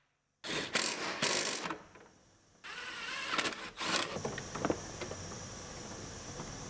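Cordless impact driver running bolts in, in short rattling bursts broken by two abrupt silent gaps. After about four seconds come quieter clicks and clunks as parts are handled by hand.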